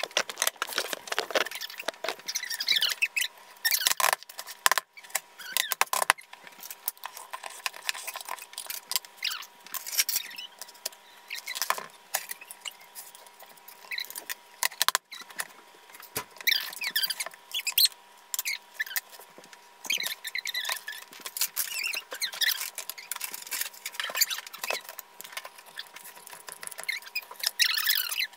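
Fast-forwarded kitchen audio: voices sped up into high-pitched, chipmunk-like chatter, broken by quick clicks and clatter.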